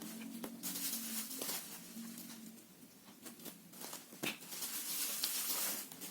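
Hands handling a stick deodorant and its packaging: rustling with a few sharp clicks, in two longer stretches, one about a second in and one near the end. A low steady hum runs underneath.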